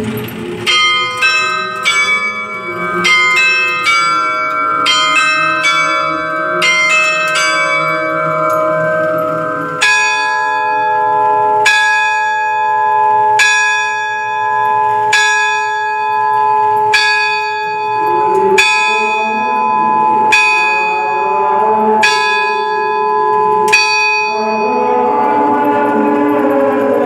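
Church bells driven by a 1955 J.G. Baer Swiss tower clock. For about nine seconds the quarter bells ring in quick groups, then the hour bell strikes about nine slow, evenly spaced blows roughly 1.7 seconds apart, each ringing on. This is the quarter peal followed by the strike of the full hour.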